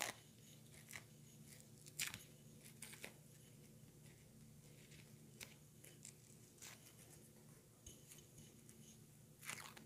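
Near silence with faint scattered ticks and crackles, about one every second, as a peel-off face mask is picked at and peeled from the skin along the jaw, over a faint steady low hum.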